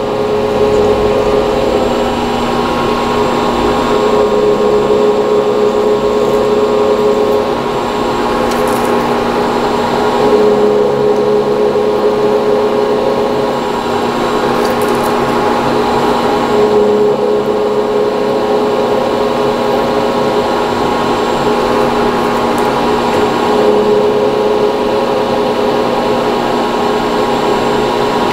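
Milling machine running in back gear while a countersink cuts into a copper vise jaw: a steady mechanical whine whose tones shift slightly every few seconds.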